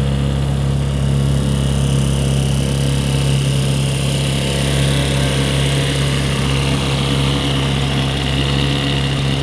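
Tohatsu outboard motor running at a steady speed, a smooth, even hum like a sewing machine.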